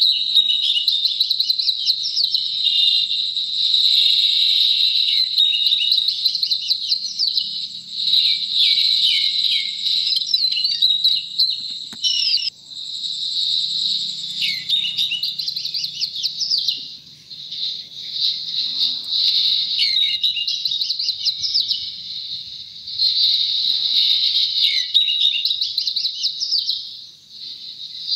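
Dense chorus of many small birds chirping and twittering, quick overlapping calls that rise and fall in pitch, with brief lulls about 12, 17 and 27 seconds in.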